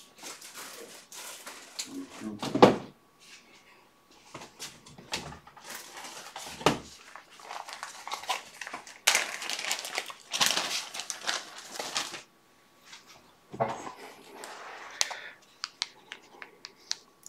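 Someone rummaging through fly-tying materials on a shelf: rustling of plastic bags and packets, with a few knocks and thuds, the loudest about two and a half seconds in.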